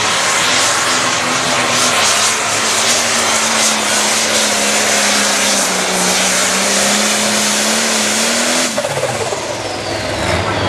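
Turbocharged diesel engine of a Farmall light pro stock pulling tractor running flat out, pulling the sled at a steady high pitch. Near the end the throttle is cut at the end of the pull and the engine drops away abruptly, leaving a falling whine as the turbo spools down.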